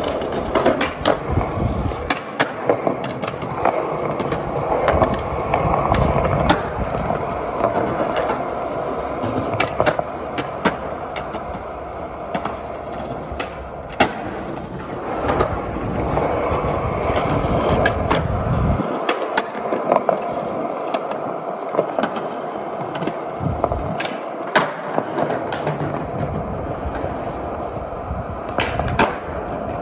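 Skateboard wheels rolling on concrete with a steady rumble, broken several times by sharp clacks of the board being popped and landing on tricks.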